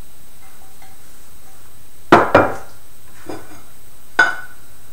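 Upturned ceramic slow-cooker crock knocked down against a plate and wooden counter to shake a baked banana cake loose: two sharp knocks close together about two seconds in, a fainter one, then another near the end, each ringing briefly.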